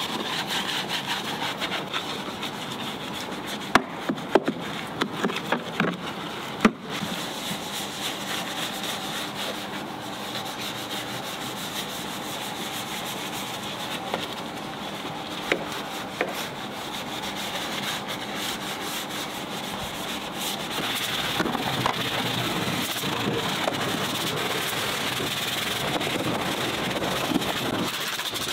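Hand-held detailing brush scrubbing wet, cleaner-covered plastic and metal engine-bay parts: a steady scratchy rubbing, with a few sharp clicks of the brush against parts between about four and seven seconds in, and a little louder in the last third.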